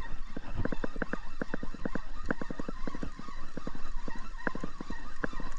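Spinning reel being cranked, giving a fast, uneven run of clicks, several a second.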